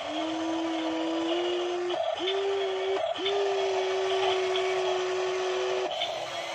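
Small electric motors of a remote-control model Kobelco SK200 excavator whining steadily as the arm digs and the upper body swings. The whine shifts slightly in pitch, breaks off briefly about two and three seconds in, and drops away near the end as the controls change.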